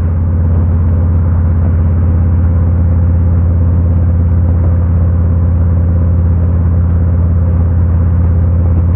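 Harley-Davidson Road King's V-twin engine running steadily under way at an even speed, heard from a helmet-mounted camera.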